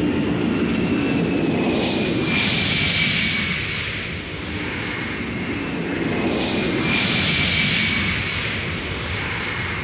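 Boeing 747SP's four turbofan engines at takeoff power during the takeoff roll and liftoff: a steady jet roar with a high whine that slowly falls in pitch, growing louder twice.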